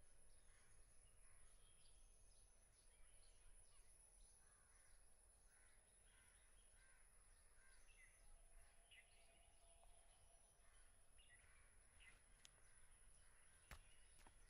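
Near silence: faint ambience with scattered soft bird chirps and a couple of light knocks near the end.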